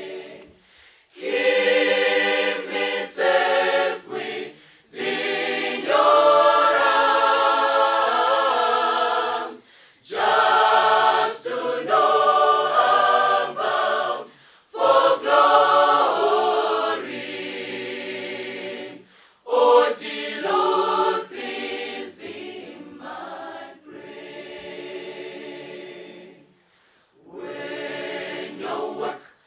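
A choir singing, in sung lines separated by short breaths and pauses.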